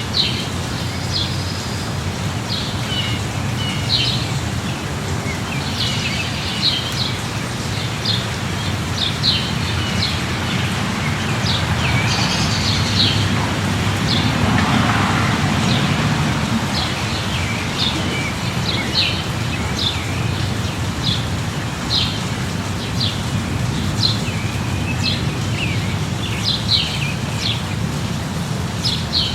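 Steady light rain with small birds chirping over it, many short, high chirps every second or so. About halfway through, a broad swell of louder noise rises and fades over a couple of seconds.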